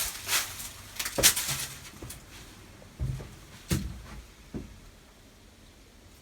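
A handful of knocks and thumps, the loudest about a second in, from a wooden privy door being opened and handled.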